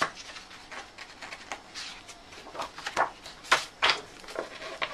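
Pages of a large hardback book being turned and flipped by hand: a series of irregular papery rustles and flaps, loudest about three to four seconds in.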